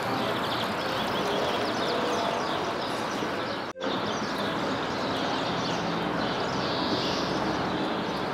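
Outdoor city street ambience: a steady wash of background noise with many small birds chirping high over it. The sound drops out briefly about four seconds in.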